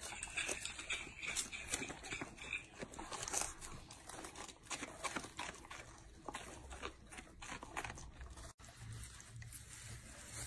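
Golden retriever puppy crunching and chewing a raw head of cabbage, with repeated crisp bites and tearing of leaves. About eight seconds in the sound cuts off for an instant and a quieter stretch with a low hum follows.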